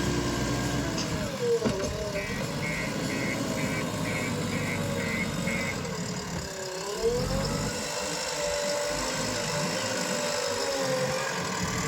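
JCB diesel engine running, with its pitch dipping twice as it takes load. A warning beeper sounds about eight evenly spaced beeps early on.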